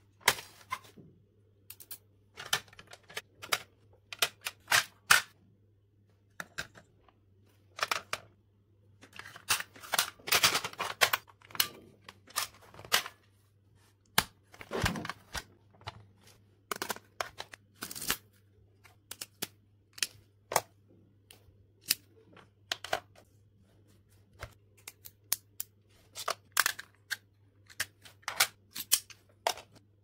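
Sharp clicks, snaps and taps of a plastic pencil box being handled: buttons pressed, the lid and pop-out drawers opened and shut, items set down. A denser stretch of paper rustling comes about a third of the way in, and a duller thud follows it.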